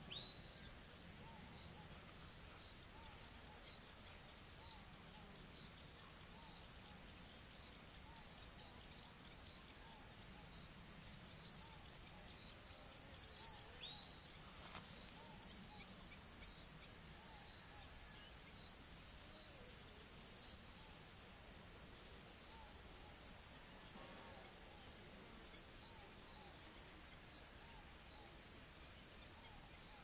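A steady chorus of crickets and other insects: a continuous high, shrill drone with pulsing trills and regular chirps over it, plus a couple of short falling whistled calls.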